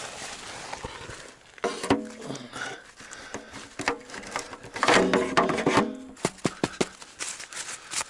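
Close handling noise: rustling and scraping of clothing and gloves against the camera microphone, with sharp clicks and knocks. It is loudest about five seconds in, and a quick run of clicks follows near the end.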